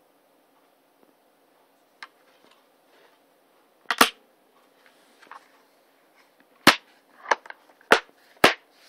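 Sharp plastic snaps from a clear multi-disc DVD case: a disc pressed down onto its centre hub clicks into place about four seconds in, followed by four more loud snaps as the remaining discs are seated and the case is shut.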